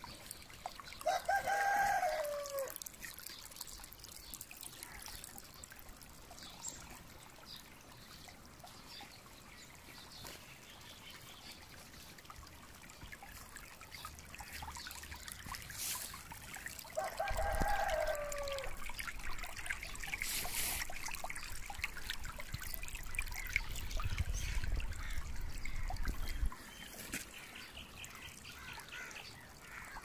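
Shallow stream trickling over stones and leaves. A rooster crows twice, about a second in and again a little past halfway, each crow falling away at the end. A low rumble sets in with the second crow and cuts off suddenly near the end.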